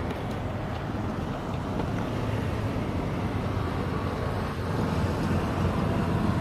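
Steady wind noise on the microphone, with a low rumble underneath.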